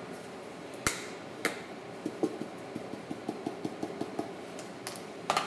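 A box of ground black pepper being shaken over a plate of flour. A sharp click about a second in, then a run of light, quick taps, several a second, as the pepper is shaken out.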